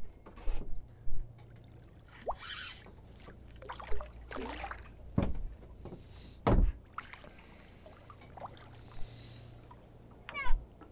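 Water splashing and lapping around a small fishing boat, with scattered sharp knocks and clicks from the rod and spinning reel as a hooked pollack is reeled in and brought to the side.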